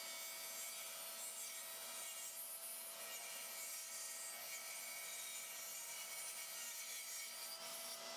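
Table saw ripping thin strips off a cherry board: a steady, faint hiss of the blade cutting, with a constant motor whine.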